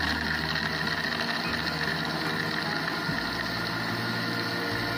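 Electric countertop blender running steadily, its motor churning a jar of mint lemonade with ice cubes.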